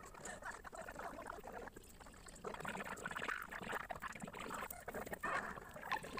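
Masking tape being peeled off the edges of watercolour paper: an irregular ripping, rustling noise that gets louder a couple of seconds in.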